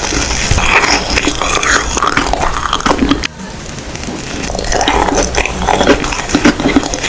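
Close-miked biting and chewing of soft, squishy marshmallows. There is a sudden drop in level about three seconds in, after which the chewing builds back up.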